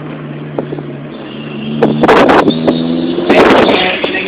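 A man imitating an engine with his voice: a steady droning hum, then two harsh raspy bursts about two and three and a half seconds in.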